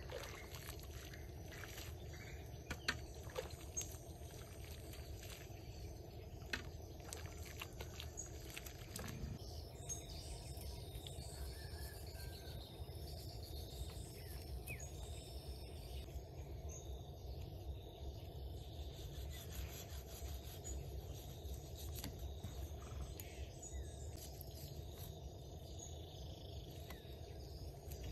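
Outdoor ambience: a steady low rumble with insects chirping faintly, and a few sharp clicks in the first several seconds.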